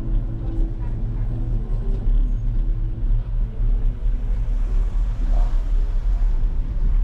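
Steady low rumble of a bicycle ride: wind buffeting the action camera's microphone over the hum of tyres rolling on asphalt, with faint voices of pedestrians in the background.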